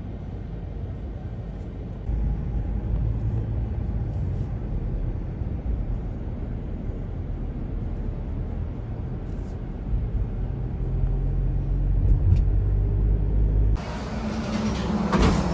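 Steady low rumble of car cabin noise, engine and road sound heard from inside the car. Near the end it switches abruptly to the brighter running noise inside a moving streetcar.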